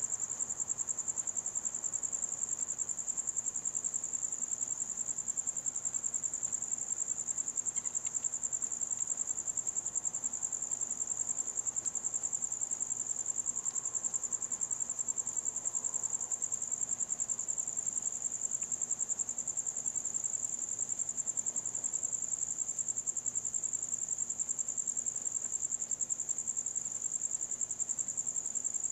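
Crickets chirping in a steady, high-pitched, rapidly pulsing trill.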